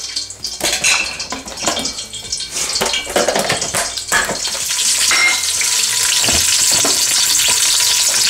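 A few knocks and clatter as a plastic blender jug and lid are handled. Then, about halfway through, sliced onions start sizzling steadily in hot oil in a pot.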